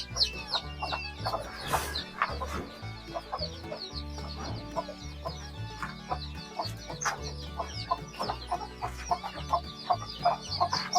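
A brood of young country-chicken chicks peeping continuously, many short high cheeps falling in pitch, several a second. Background music with low sustained bass notes runs underneath.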